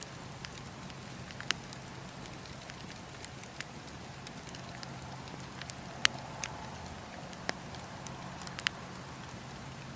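Bonfire crackling, with irregular sharp pops of burning wood, the loudest three spaced a few seconds apart.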